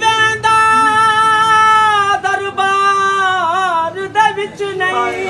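A man's voice singing an unaccompanied Punjabi lament (kalam) in long, high held notes: the first held steady for about two seconds, the next bending into wavering ornamented turns.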